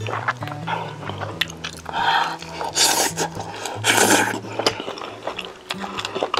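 Close-miked eating: wet chewing and small clicks of the mouth, with three loud noisy bursts of eating about two, three and four seconds in, over soft background music with low held notes.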